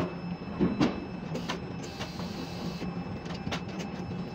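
Ship-to-shore quay crane heard from the operator's cab: a steady mechanical hum with a low tone, and irregular sharp clicks and knocks.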